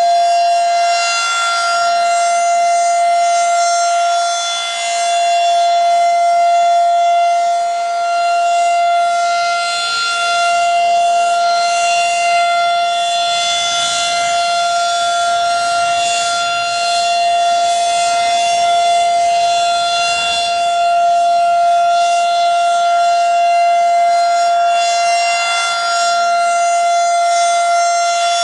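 Federal Signal 2001-SRN/DC rotating outdoor warning siren sounding a steady, unchanging tone during a routine test. Its loudness swells and fades gently every few seconds as the rotating horn sweeps past.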